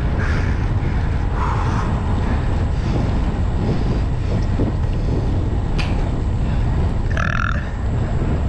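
Wind buffeting the microphone at riding speed on a road bicycle, a steady deep rumble. About seven seconds in, a short throaty exhale from the rider breathing hard.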